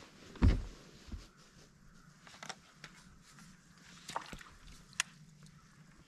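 A low thump about half a second in, then a few faint clicks and taps: handling noise on a bass boat's front deck as an angler works a rod and reel, over a faint steady hum.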